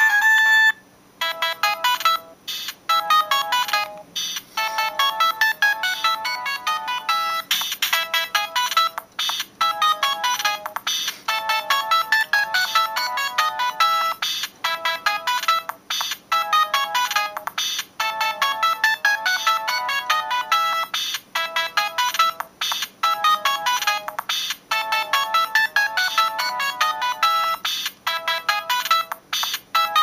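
Siemens C65 mobile phone ringtone: a synthesized melody of quick, beeping notes, several sounding at once, repeating in short looping phrases. A short single tone and a brief pause come first, and the melody starts about a second in.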